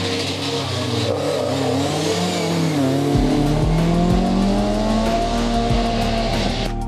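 BMW E30 M3 race car's four-cylinder engine accelerating hard on a hillclimb run, its pitch wavering through gear changes, then rising steadily as it pulls away. Background music with a steady beat comes in about three seconds in.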